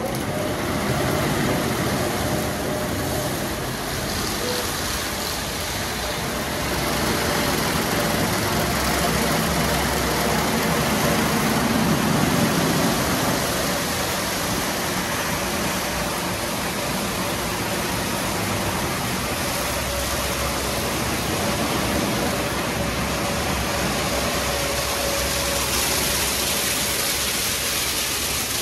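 Automatic car wash equipment running: a steady rush of spraying water and machinery, with a faint steady hum underneath.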